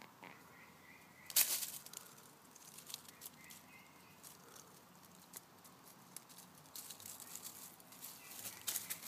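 Dry leaf litter rustling and crackling as a chipmunk and a cat move through it. There is a sudden loud rustle about a second and a half in, and denser crackling near the end.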